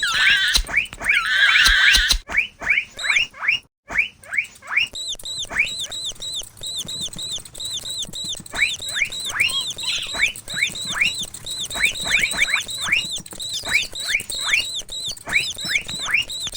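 Mouse squeaking sound effects: a rapid, continuous string of short high squeaks, each dropping in pitch, with louder, harsher squealing in the first two seconds and again about ten seconds in, and a brief break just before four seconds.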